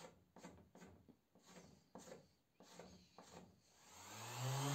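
A thin wooden stick scraped by hand along the mitre corner of a pine frame in about seven short strokes. Near the end an electric orbital sander starts up, its motor rising in pitch and growing louder.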